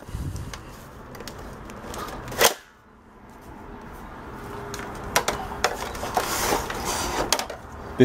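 Plastic clicks and clatter as the hose wand of a Hoover upright vacuum is pulled off its socket and the unplugged machine is handled, with one sharp click about two and a half seconds in and a run of smaller knocks and rattles in the second half.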